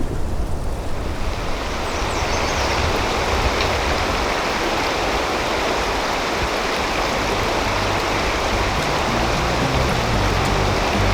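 Stream water rushing and splashing steadily, after a low rumble in the first second or so.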